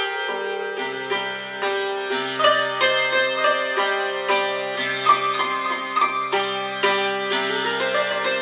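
Persian santur (hammered dulcimer) played with a pair of light wooden mezrab hammers: a folk melody of struck metal-string notes, several a second, each ringing on and overlapping the next.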